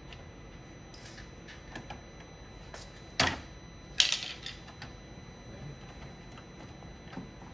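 Hard plastic clicking and knocking as the BMW's active grille shutter pieces are moved by hand behind the kidney grille. There are a few light clicks, then two sharp snaps about three and four seconds in.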